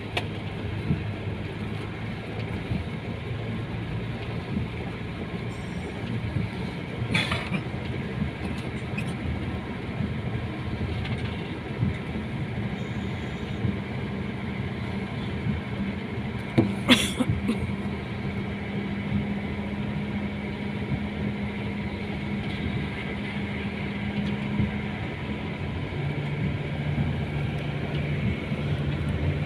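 Engine and road noise heard from inside the cabin of a moving vehicle: a steady low hum whose note shifts, changing near the end. Two sharp knocks break in, one about seven seconds in and one about seventeen seconds in.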